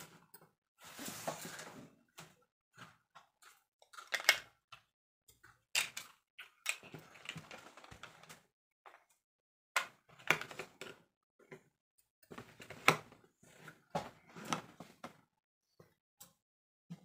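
Small plastic toy makeup pieces handled and knocked against a table: scattered sharp clicks and clacks, with a short rustling noise about a second in.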